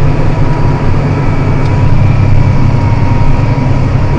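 John Deere 7280R tractor's diesel engine running steadily under plowing load, a constant low drone with a faint steady whine above it.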